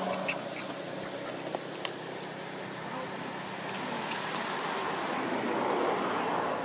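A few sharp rustling clicks in the first two seconds, a long-tailed macaque stepping over dry leaves and twigs, then a steady outdoor background with a faint murmur of voices that grows slightly louder near the end.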